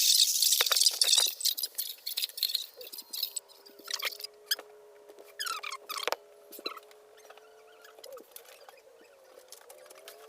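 Radio reception noise between weather-radio broadcasts: loud hissing static and crackling for the first few seconds, then scattered clicks and faint overlapping steady tones that waver in pitch near the end.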